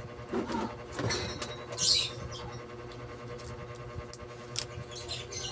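Enamelled copper wire being worked by hand into the slots of an alternator stator: scattered light scratches, squeaks and clicks, the sharpest a scrape about two seconds in, over a steady low hum.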